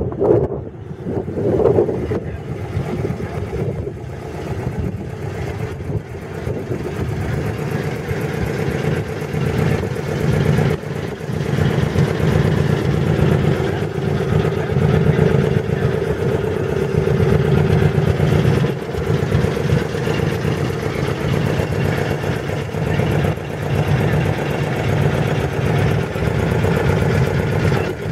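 Ford F-150's six-cylinder engine idling steadily.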